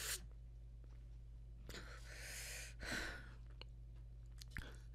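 A woman breathing hard: a long breath drawn in, then a short heavy breath out, with a couple of small mouth clicks, over a faint steady low hum.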